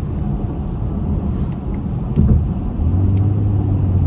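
Car engine and road rumble heard from inside the cabin while driving, with a single thump a little after two seconds in; from about three seconds in a steady low engine drone sets in and holds.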